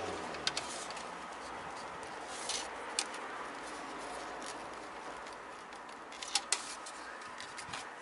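Hand screwdriver driving screws through a plastic louvred vent cover into wall plugs: a few scattered clicks and scrapes over a steady outdoor hiss.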